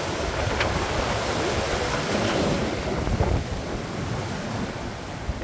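Rough storm sea: waves breaking and churning in a steady rush, swelling loudest about three seconds in, with wind buffeting the microphone.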